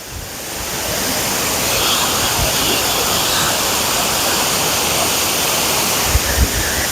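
Water pouring over a dam spillway: a steady rushing that swells up over the first second and then holds. A few short low thumps come through, one mid-way and a cluster near the end.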